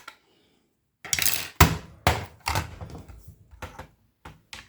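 Sharp, irregular clicks and knocks of a plastic broadband router case being handled and pried apart, starting about a second in.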